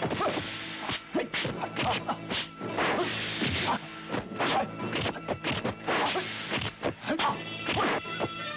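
Kung fu film fight soundtrack: a rapid series of dubbed punch and kick impact sound effects, several a second, over background music.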